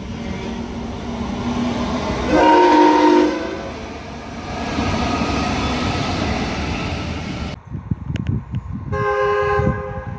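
Three-car electric suburban train sounding its horn once, for about a second, then the rolling noise of the train running past. After a sudden cut, a second train horn sounds briefly near the end over a gusty low rumble.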